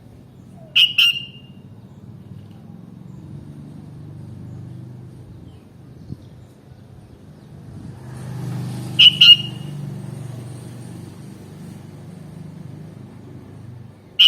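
Sooty-headed bulbul giving short, sharp two-note calls twice, about eight seconds apart, over a steady low rumble like distant traffic.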